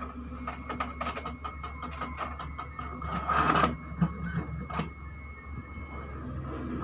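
Brother DCP-T700W inkjet printer running a copy job: its mechanism whines steadily under a quick, irregular series of clicks and ticks, with a louder rushing sweep about three seconds in.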